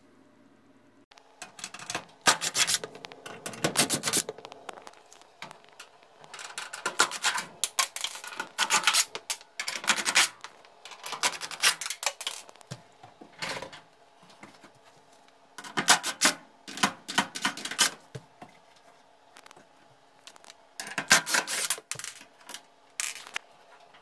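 Bursts of scraping and rapid clicking as screws are backed out and the dryer's sheet-metal and plastic front panels are worked loose, several times over.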